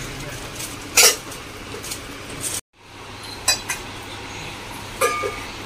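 Light clinks of small hard items being handled against shop background noise, after a sharp click about a second in. Two of the clinks ring briefly. The sound cuts out completely for an instant in the middle.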